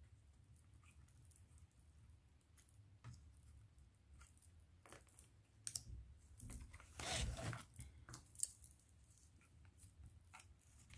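Near silence with faint, scattered clicks and rustles of hands placing small dried decorative pieces among the trees and houses, with a louder rustle about seven seconds in.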